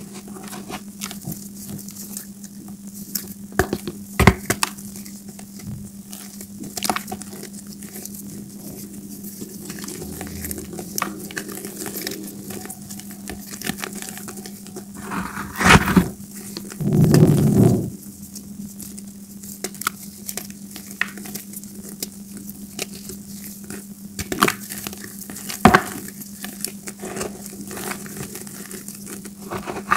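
Hands crushing and crumbling balls of gym chalk in a heap of chalk powder: soft powdery crunching with scattered sharp cracks. The loudest crunches come a little past the middle.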